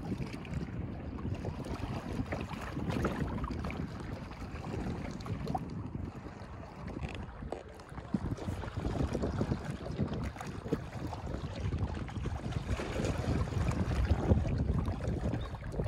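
Small waves lapping and splashing against shoreline rocks, with wind buffeting the microphone.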